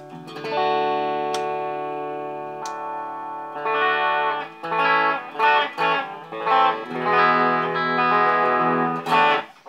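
Donner DTC-100W Telecaster-style electric guitar, amplified: one chord is struck and left to ring and fade for about three seconds, then a run of rhythmically strummed chords follows and is cut off sharply near the end.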